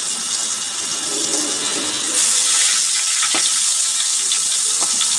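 Water poured into a hot wok of frying oil, hissing and sizzling; the hiss swells about two seconds in. Water is being added to stop the hot oil spattering.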